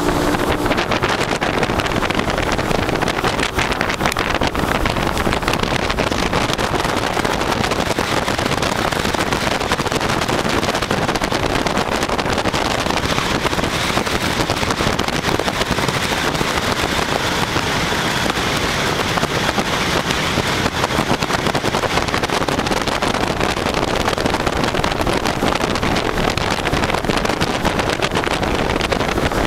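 Small motorboat running steadily at speed: engine noise mixed with rushing water and wind buffeting the microphone.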